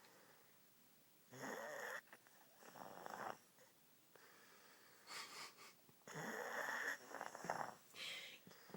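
A sleeping woman snoring: a run of short, separate snores with quiet gaps between them.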